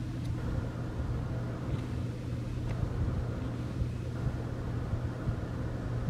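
A steady low hum with a faint hiss over it, unchanging and without distinct events.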